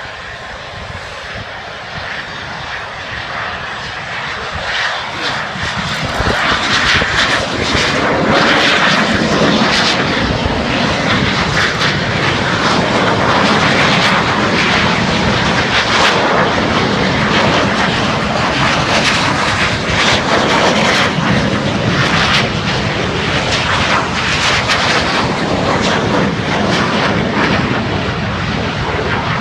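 Aircraft engine noise from an airplane in flight, growing louder over the first six seconds as it approaches, then staying loud and steady.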